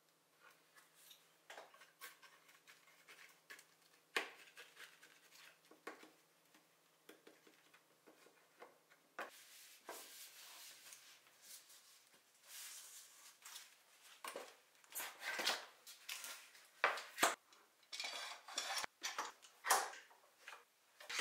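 Workshop handling sounds while gluing down loose veneer: soft taps and rustling as painter's tape is pressed along a glued edge, then denser, louder sharp clicks and metallic clinks toward the end as bar clamps and quick-grip clamps are set and tightened.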